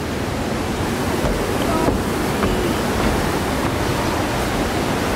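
Steady rushing of white-water rapids on the Nile River.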